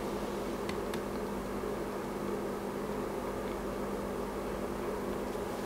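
Transformer-type soldering gun humming steadily at mains frequency while held on a ground joint soldered to the amplifier's chassis, which it struggles to bring up to heat. A couple of faint clicks about a second in.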